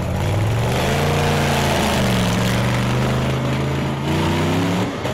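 Monster truck engine revving hard as the truck accelerates. The note climbs about half a second in, dips briefly near two seconds, climbs again, then drops away near the end.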